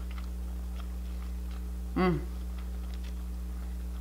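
Someone chewing a bite of crispy fried chicken drumstick, with faint soft crunches, over a steady low hum. About two seconds in comes one short voiced "mm" of the voice.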